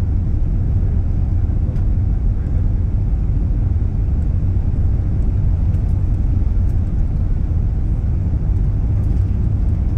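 Cabin noise inside an Airbus A380 during its departure: a steady low rumble of engines and airflow, with no change in pitch or level.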